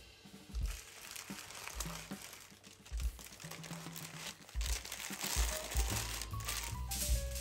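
Baking parchment crinkling and rustling as hands fold it into a parcel, over background music with a low bass line.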